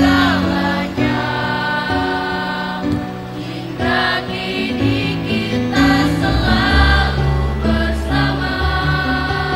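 Mixed choir of boys' and girls' voices singing in harmony, moving through held notes.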